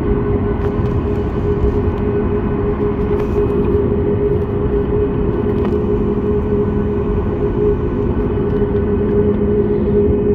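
Jet airliner's engines and cabin noise heard from inside the cabin while the plane taxis: a steady drone with a constant hum, no change in power.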